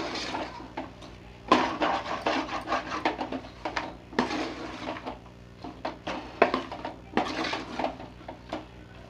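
Metal spoon scraping and knocking against the inside of a metal cooking pot in irregular strokes as chicken pieces are stir-fried in a thick spice masala without water.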